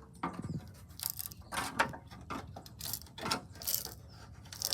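Hand tools clinking, knocking and scraping on metal parts of a tug being taken apart: irregular short knocks with rubbing between them.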